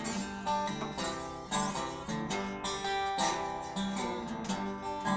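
Blues band playing an instrumental passage, with acoustic guitar strumming prominent.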